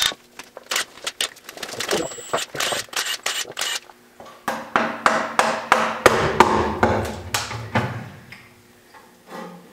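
Cordless ratchet and tools working the sump bolts of a hoisted engine: a run of sharp, irregular clicks and knocks that thins out near the end.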